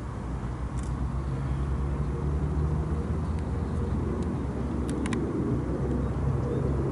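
A motor vehicle engine running steadily, a low hum, with a few faint clicks about five seconds in.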